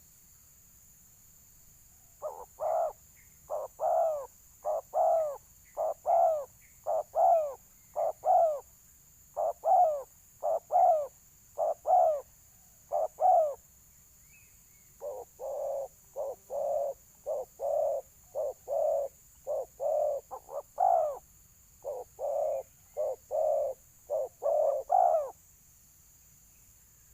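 Spotted dove (balam) cooing: a long run of short coos, mostly in pairs, with a brief pause about halfway through. This is the full territorial calling that is prized in fighting doves.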